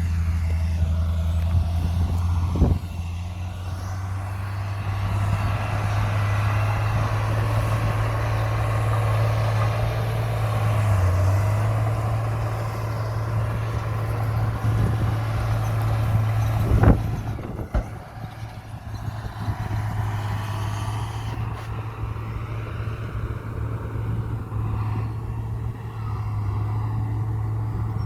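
Heavy diesel earthmoving machinery running under steady load with a low, even drone. Two sharp metallic knocks are heard, one a few seconds in and a louder one about two-thirds of the way through.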